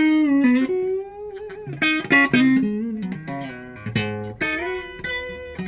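Fender Stratocaster HSS electric guitar playing a short lead phrase with string bends: notes pushed up in pitch and one held with vibrato, then further picked notes.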